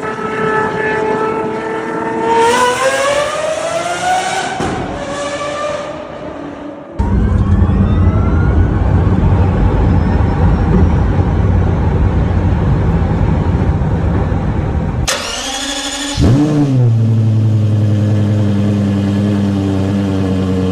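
Hypercar engines in cut-together clips: an engine revving with its pitch climbing through the gears, then a loud full-throttle run, then an engine firing up with a quick rev flare and settling into a steady high idle, typical of a cold start.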